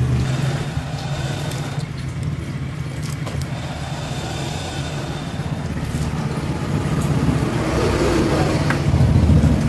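A steady low motor rumble, like an idling engine, that grows a little louder near the end. Faint clicks and scrapes of a knife on a wooden board as sardines are cut and scaled sit over it.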